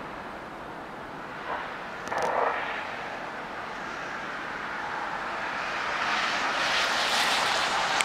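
Jet aircraft passing overhead: a steady rush that swells and grows brighter over the last few seconds, with a brief louder rush about two seconds in.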